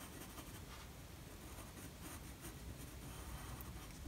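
Faint scratching of a pencil shading on paper.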